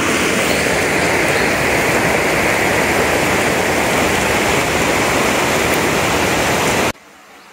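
Loud steady rush of river water close to the microphone, cutting off abruptly near the end to a much quieter background.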